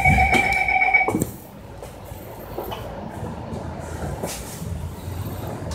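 Inside a moving MAN A95 double-decker bus: a steady electronic tone sounds for about the first second and cuts off, then the low running rumble of the bus with a few brief rattles.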